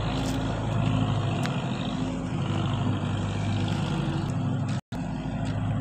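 Diesel tractor engine running steadily at an even pitch, with no change in revs. The sound cuts out completely for a split second near the end.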